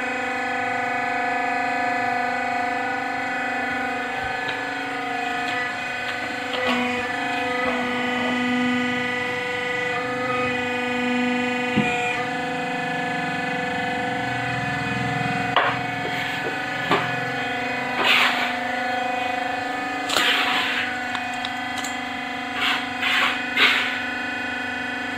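A steady droning hum of several held tones, with short scraping and rubbing noises and a knock or two that start about halfway through and bunch up near the end.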